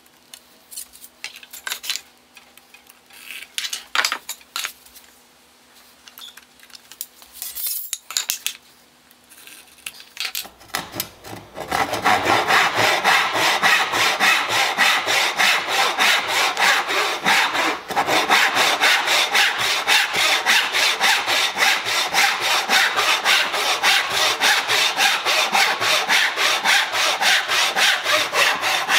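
Light taps and scratches for about ten seconds, then a large hand backsaw crosscutting a hardwood board in a sawing jig: a loud, steady run of evenly repeated back-and-forth strokes.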